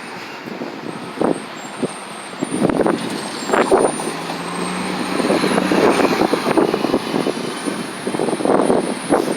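A city transit bus engine running as the bus moves through the terminal, growing louder about a third of the way in, with wind gusting on the microphone.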